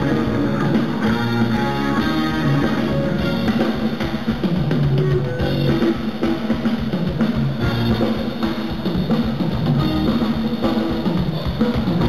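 Live rock band playing, with drum kit and electric guitars to the fore over bass.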